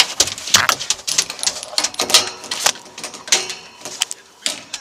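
Irregular clatter of sharp clicks and knocks: an animal-control catch pole and the truck's dog compartment rattling as a dog is put inside.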